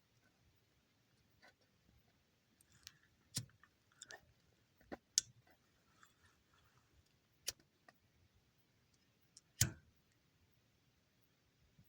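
Dry wood crackling: a dozen or so scattered sharp pops and clicks at irregular intervals, with louder cracks about five seconds in and again near the end.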